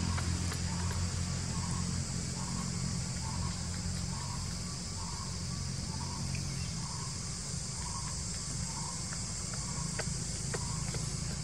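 Steady outdoor insect chorus with a continuous high shrill drone, joined by a soft chirp repeating a little under twice a second. A low rumble sits underneath and eases after the first few seconds.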